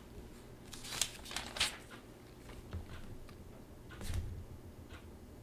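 Faint paper handling: a few light rustles of pages in the first two seconds, then a soft thump about four seconds in.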